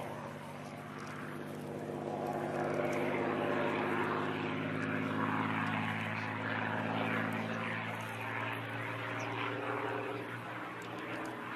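P-51D Mustang's Packard Merlin V-12 engine and propeller running steadily as the fighter flies aerobatic manoeuvres high above: a deep, even drone that grows louder a few seconds in and eases off somewhat near the end.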